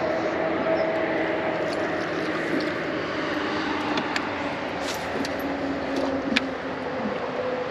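Steady drone of a distant engine, its pitch slowly dropping, over a constant hiss. A few light clicks sound in the middle.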